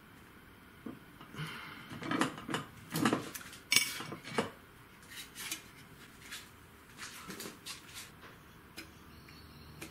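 Irregular clicks and clatter of small hard plastic and metal parts being handled on a workbench, as a quadcopter's 3D-printed arms, motors and propellers are knocked and moved about; the knocks are busiest in the first half.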